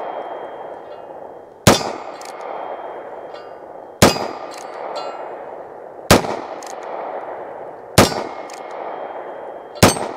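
Five shots from a Heritage Barkeep Boot, a 1-inch-barrel .22 single-action revolver, firing .22 Magnum rounds, spaced about two seconds apart. Each crack is followed by a fading echo, and fainter clicks fall between the shots.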